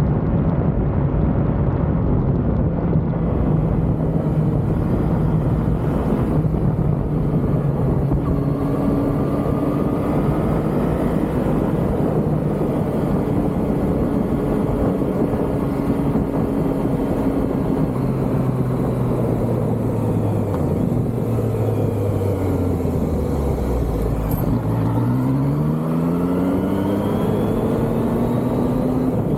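Yamaha MT-09's three-cylinder engine under way, picked up by the camera's built-in microphone over a steady rush of wind noise. The engine note holds fairly even, falls in pitch as the bike slows about two thirds of the way in, then climbs steeply as it accelerates hard near the end.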